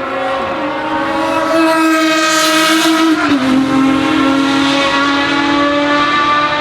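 Ferrari FXX Evoluzione's V12 engine running at high revs on track, loud and high-pitched. The note swells as the car comes closer, then drops to a lower pitch about three seconds in as it goes past.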